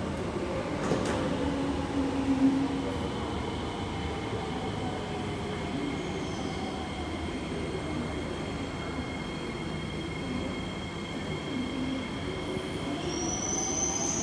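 Kawasaki–CRRC Qingdao Sifang C151B metro train departing: steady electric traction whine over wheel and running noise, with a couple of knocks in the first three seconds. Near the end a higher whine rises in pitch as the train gathers speed.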